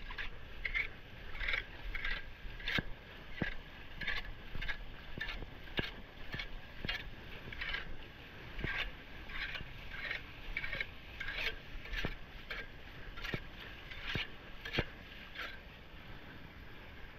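Footsteps in sneakers on a wet street with shallow standing water, about two steps a second, stopping near the end.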